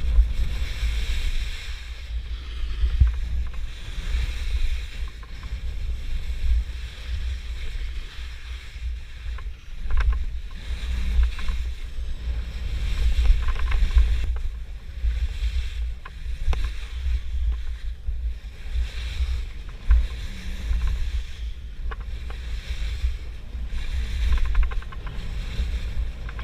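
Wind buffeting the microphone at speed, a fluctuating low rumble, with the rushing hiss and scrape of edges carving across packed snow, swelling with each turn.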